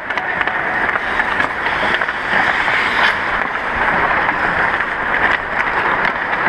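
Steady rushing scrape of ice skates on the rink, with a few sharp clacks of hockey sticks striking pucks.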